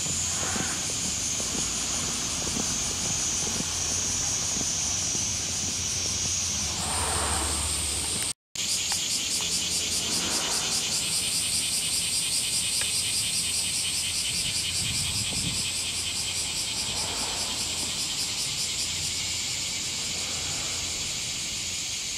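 A chorus of insects trilling steadily, high-pitched and rapidly pulsing, with the pitch stepping up once or twice and a brief break near the middle.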